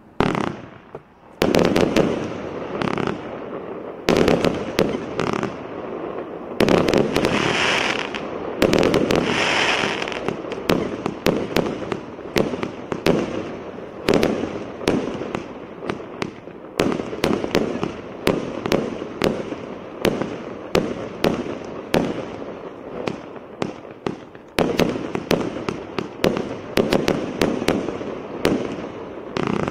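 A 90-shot fireworks cake firing: a quick, continuous run of sharp shots and aerial bursts that starts about a second and a half in.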